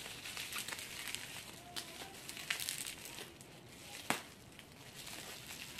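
Bubble wrap and plastic packaging crinkling and rustling as it is handled and unwrapped by hand, with a sharp click about four seconds in.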